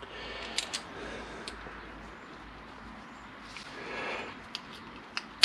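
Small metal footpeg parts being handled and worked against a new return spring: light rustling with a few short, sharp clicks, the sharpest at the very end.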